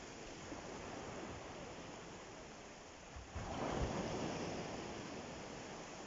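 Small Mediterranean waves washing onto a pebbly beach: a steady wash of surf, with one wave breaking louder about three seconds in and fading over the next two seconds.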